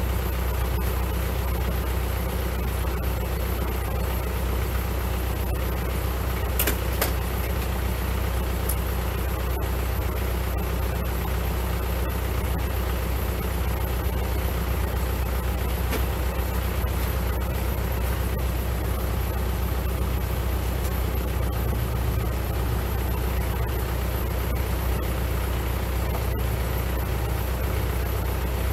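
Kubota L4701 tractor's four-cylinder diesel engine idling steadily with a low, even hum. A single brief knock about a third of the way in.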